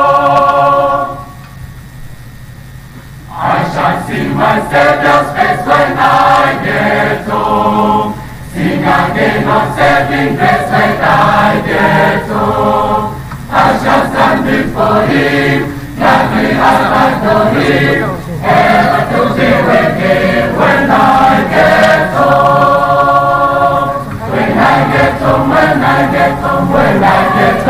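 A large choir of recruits singing together, phrase after phrase with long held notes. The singing drops away for about two seconds a second in, then resumes, with short breaks between later phrases.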